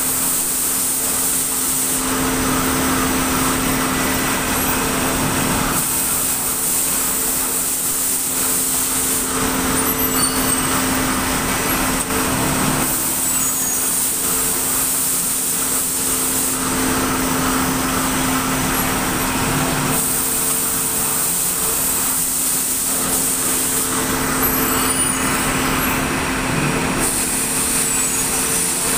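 Tile-making plant machinery running with a steady hum, its sound changing in a repeating cycle about every three and a half seconds.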